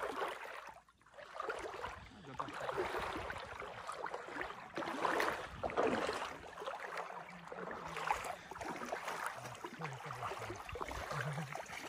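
Water splashing and swishing as a seine net is hauled through a shallow river by people wading in it, in uneven swells that rise and fall.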